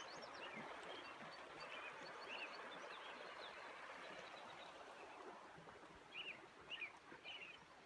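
Faint steady rush of a flowing river, with a small bird chirping over it: short arched calls, a few of them in quick succession near the end.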